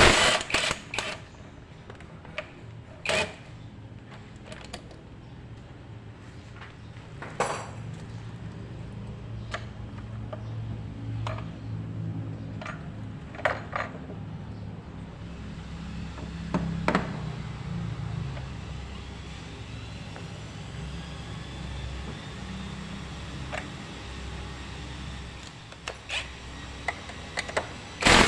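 Hand tools and metal parts clicking and clinking as the throttle body is unbolted and taken off a Honda HR-V engine, with a low steady hum underneath through the middle stretch.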